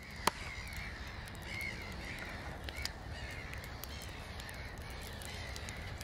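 Crows cawing several times over a steady low rumble and the scattered crackle of a burning fire. A single sharp crack sounds just after the start.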